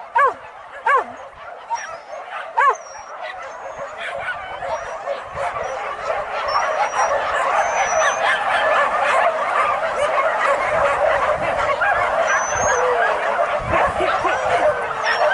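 A pack of hunting dogs yelping on a wild boar chase. There are a few single arching yelps at first. From about four seconds in, many dogs yelp and bay over one another, growing louder.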